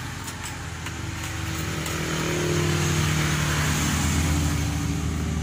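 Motor vehicle engine running, growing louder over the first three seconds and then holding steady.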